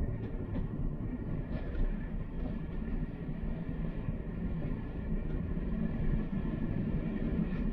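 A train running: a steady low rumble with a few faint clicks.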